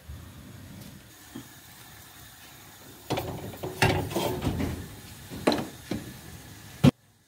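Aluminium cooking pot clattering and scraping on a gas stove's metal grate as it is set over the burner, with a few more knocks and a sharp clack near the end, after which the sound cuts off suddenly.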